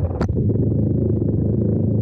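Small electric RC car's motor and gear drive running steadily with a low hum, picked up by the camera riding on the car. A single sharp click sounds about a quarter second in.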